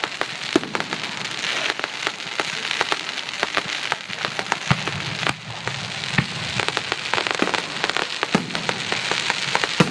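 Fireworks display: dense crackling from many small rapid pops, with a few louder sharp bangs, one about half a second in and two near the middle.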